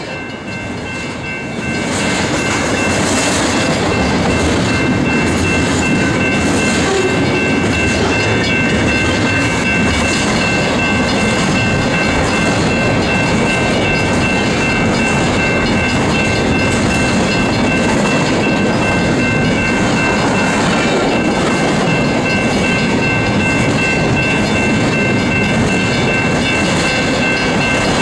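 Intermodal freight train's container well cars rolling past at close range: a loud, steady rumble of wheels on the rails with a thin high ringing note running through it, growing louder about two seconds in.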